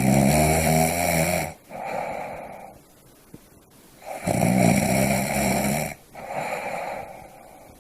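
Snoring: two snoring breaths about four seconds apart. Each is a loud, low, buzzing snore of about a second and a half, followed by a softer breath.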